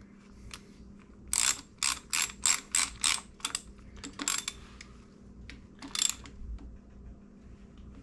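Hand ratchet clicking as it tightens the shift lever bolt: a quick run of about eight strokes, a little over three a second, then two more strokes spaced further apart.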